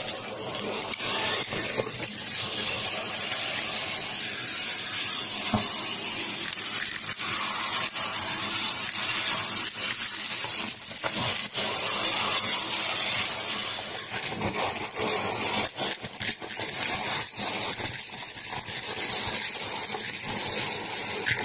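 Shark vacuum cleaner running with its crevice tool in a pile of fluff, popcorn kernels and craft bits on carpet: a steady rush of suction with scattered clicks and rattles as hard bits are pulled up the hose.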